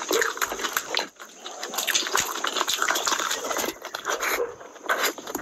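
Close-miked eating sounds of rice and curry eaten by hand: wet chewing, lip smacking and slurping in a dense, irregular run of small clicks.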